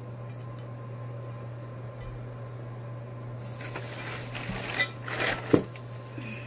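Bubble wrap and packing paper crinkling and rustling as hands dig into a cardboard shipping box, for about two seconds starting near the middle, ending in one sharp knock. A steady low hum runs underneath.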